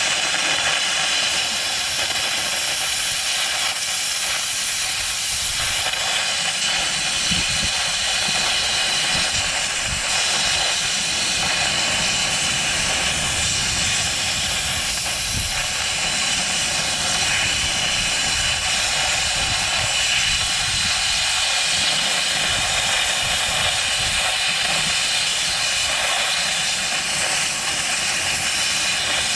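Plasma cutter arc hissing steadily as it cuts through a nut on a bulldozer blade's cutting-edge bolt.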